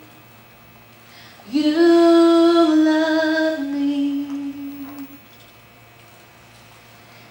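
A woman singing a slow phrase of long held notes that step downward, starting about a second and a half in and fading out about five seconds in.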